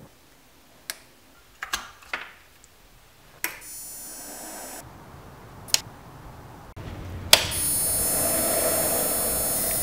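Sharp electric clicks and an electric buzz as an HID bi-xenon projector lamp switches on: a click and a short buzz about three and a half seconds in, then a louder click and a steady buzz from about seven seconds in.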